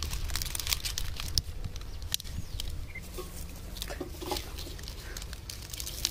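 Fresh banana leaves crinkling and crackling as they are folded and pressed by hand into a parcel, in irregular sharp crackles.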